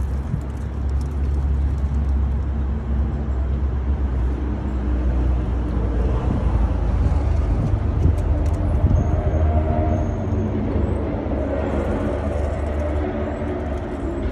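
Low, steady engine rumble of a motor vehicle running close by, with a humming engine tone coming in about halfway through.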